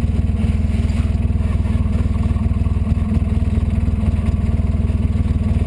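Polaris RZR 800 side-by-side's twin-cylinder four-stroke engine running steadily under load while driving, heard from inside the cockpit.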